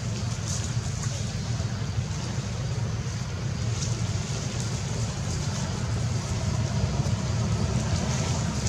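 Steady low rumble with a faint hiss above it and a few faint high ticks.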